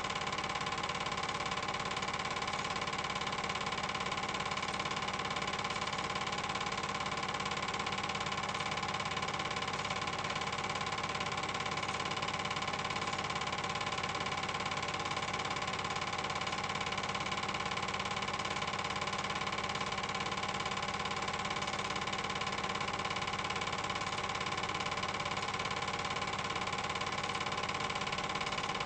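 A steady, unchanging machine-like hum made of several fixed tones.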